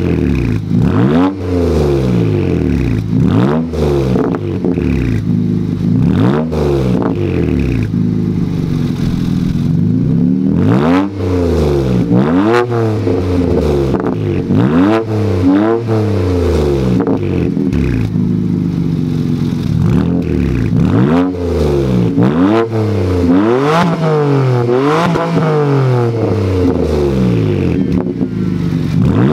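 Straight-piped exhaust of a 2007 BMW 335i's N54 twin-turbo inline-six, with mufflers and resonators removed, revved again and again while parked. Each blip rises and falls in pitch, starting at about 1000–2000 rpm, then 3000–5000 rpm, and reaching toward redline near the end.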